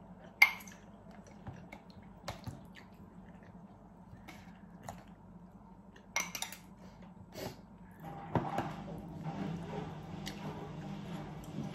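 Metal ladle clinking against a ceramic mug and bowl as stew is spooned into the mug: a few sharp, separate clinks, the first the loudest, with soft wet sounds of the food.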